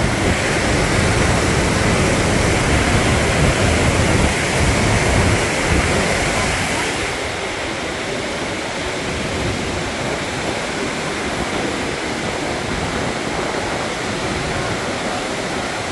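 Steady rush of falling water at the canal locks: an even, loud hiss. A deeper rumble under it eases off about seven seconds in.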